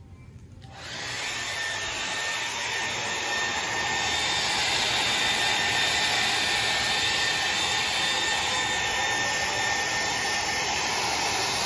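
Handheld hair dryer switches on about a second in, then runs steadily, blowing air with a thin high whine.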